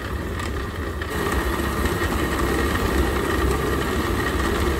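Countertop jug blender motor running steadily, pureeing garlic, ginger and spices steeped in vinegar; it gets a little louder about a second in.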